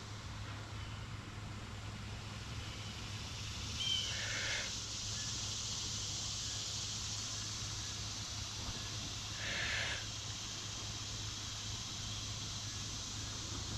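Breath blown into a tinder bundle holding a hand-drill ember: two short puffs, about 4 s and 10 s in, over a steady hiss that grows louder after the first puff.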